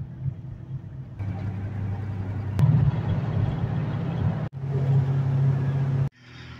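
Car driving on a highway, heard from inside the cabin: steady engine hum and road noise. The sound jumps abruptly in level several times, as separate clips are cut together.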